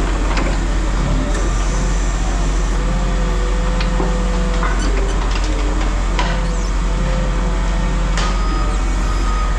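Heavy machinery's engine running steadily, with scattered metal knocks and clanks. About eight seconds in, a vehicle's reversing alarm starts beeping.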